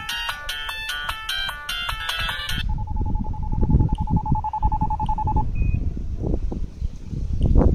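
Siemens M65 mobile phone playing a built-in ringtone melody through its loudspeaker, which cuts off about two and a half seconds in. A single steady beep from the phone follows for nearly three seconds, then a short higher blip. Wind rumbles on the microphone throughout, with a strong gust near the end.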